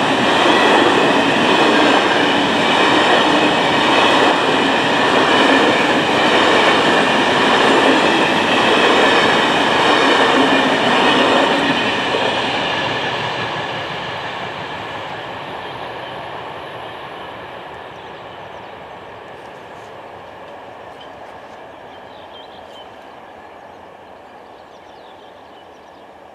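Freight train wagons rolling past close by on steel rails, with a slow rhythmic pulsing. About twelve seconds in the last wagon goes by and the rumble fades steadily as the train moves away.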